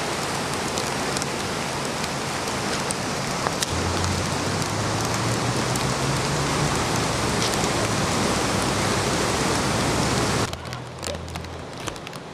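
Steady, heavy rush of rain and floodwater from the swollen river. A low hum runs under it for several seconds. About ten seconds in, the rush cuts off suddenly to a quieter wash with scattered raindrops ticking.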